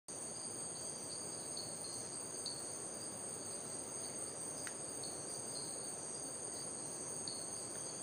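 Bell frog (Diasporus) calling: short, high 'tink' notes repeated every second or so. Behind it, a steady high-pitched insect chorus runs throughout.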